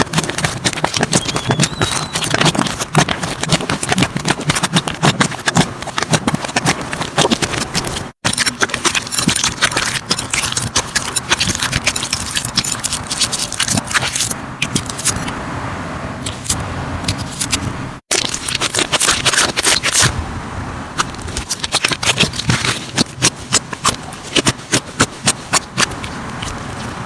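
Slime being squished and worked by hand, giving dense, rapid crackling and popping clicks. The sound drops out for an instant about 8 and 18 seconds in.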